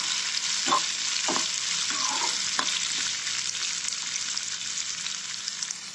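Sliced onions and soaked chana dal sizzling in hot oil in a kadai, with a steady frying hiss. A steel spoon scrapes and knocks against the pan about four times in the first three seconds as the onions are stirred.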